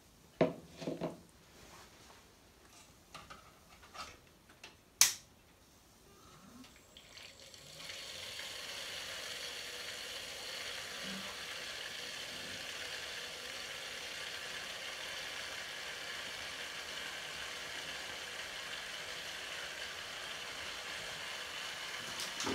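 Custom water-cooling loop's pump coming on about eight seconds in, then a steady hissing churn of coolant and trapped air circulating through the reservoir and tubing: air still in a freshly filled loop. Before it, a few light clicks and knocks of handling, with one sharp click about five seconds in.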